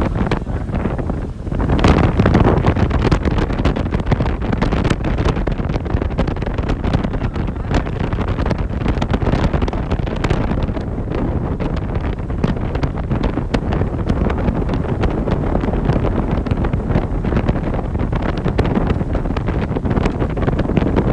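Wind buffeting the microphone: a loud, steady low rumble throughout, with many sharp crackles.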